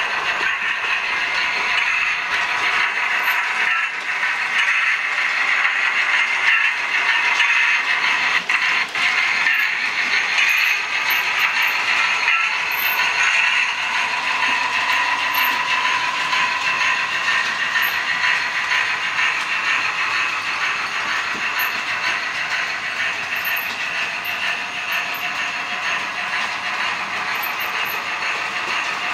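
Model railway trains running on the layout: a steady mechanical whirr of small locomotive motors and wheels rolling on the track, with no pauses.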